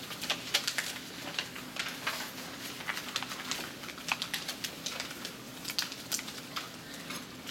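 A sheet of paper being folded and creased by hand, crinkling and rustling in quick, irregular clicks.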